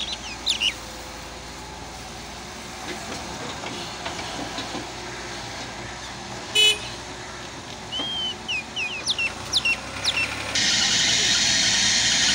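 Volvo EW145B wheeled excavator working at a distance with a steady low engine hum, under bird chirps that sweep down in pitch. A short horn toot sounds about six and a half seconds in. Near the end the sound jumps suddenly to a louder steady rush.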